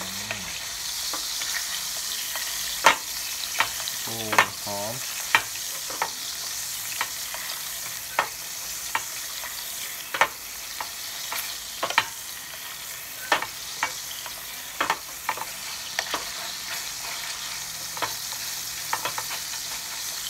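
Thin T-bone steak sizzling in melted butter in an aluminium camping mess tin, with a steady hiss. A wooden spoon clicks against the tin now and then, about once a second, as butter is spooned over the meat.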